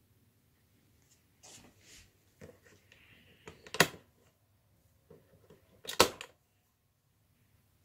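Rotary power switch on a Climate Keeper quartz radiant tower heater clicking twice, about two seconds apart, as a gloved hand turns the knob between settings, with soft rubbing and handling sounds around the clicks.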